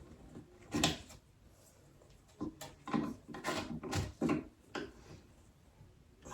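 Knocks and scrapes of flat-pack wooden drawer parts being handled and fitted together: one knock about a second in, then a quick run of about six more between two and a half and five seconds in.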